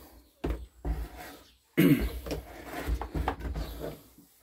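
A man coughing and clearing his throat in a few short bursts, the loudest a little under two seconds in.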